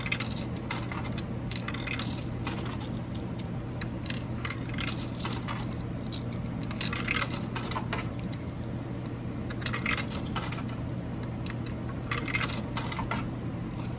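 Coins dropped one after another into a snack vending machine's coin slot, each clinking and rattling down through the coin mechanism in short clusters of clicks, about five times. A steady low hum runs underneath.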